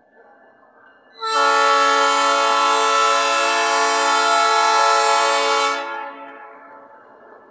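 Diesel locomotive air horn sounding one long, loud blast of about four and a half seconds, starting about a second in and then fading out. It is the warning blast for a level crossing as the train approaches.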